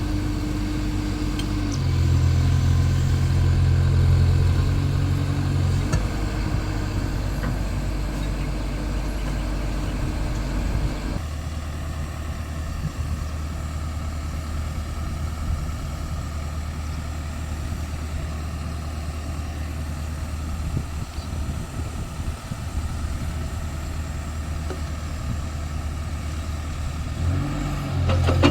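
Diesel engine of a Cat excavator running steadily, working harder and louder for a few seconds near the start, then settling to a lower, quieter note from about eleven seconds in and picking up again near the end.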